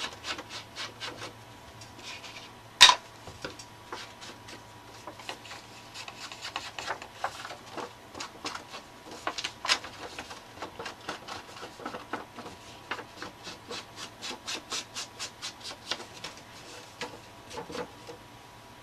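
Small ink pad rubbed along the edges of a paper tag in short, quick strokes, inking the edges. One sharp tap about three seconds in.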